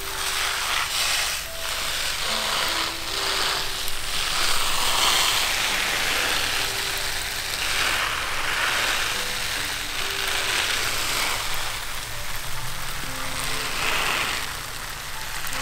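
Water spraying from a hose nozzle onto cabbage plants and soil, a hiss that swells and fades. Soft background music of sparse single notes plays beneath it.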